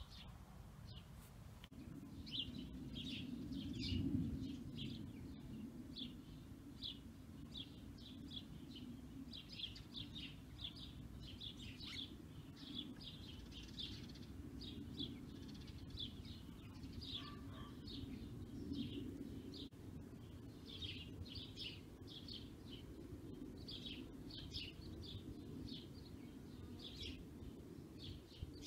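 Small birds chirping faintly: short, high chirps repeat irregularly, about a couple a second, over a low, steady background hum.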